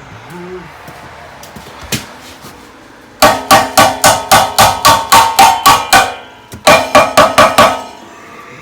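Hammer blows on metal with a ringing clang, used to knock loose a seized part of an ATV's stock exhaust: about ten quick strikes, roughly three a second, a short pause, then five more.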